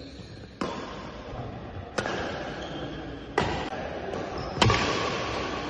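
Badminton rackets striking a shuttlecock in a doubles rally: four sharp hits about a second and a half apart, the fourth the loudest.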